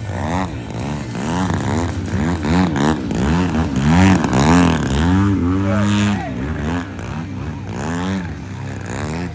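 Radio-controlled aerobatic airplane's motor and propeller, the pitch swinging up and down about twice a second through its manoeuvres, loudest about four seconds in.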